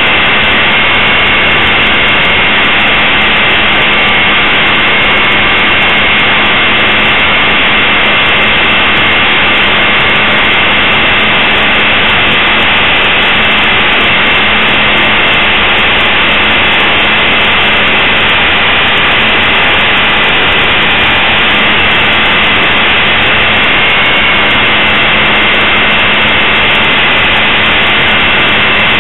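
Blade 450 3D electric RC helicopter's motor, gears and rotor, heard from a camera mounted on the helicopter: a steady, loud high whine over a constant rush of noise. Once, near the end, the pitch briefly rises and settles.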